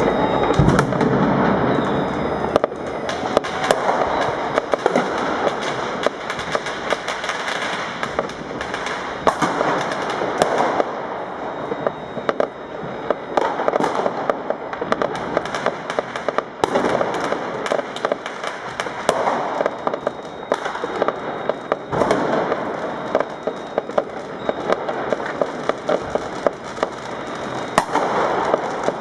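Many fireworks and firecrackers going off at once: a dense, unbroken crackle with frequent sharp bangs from aerial shells bursting.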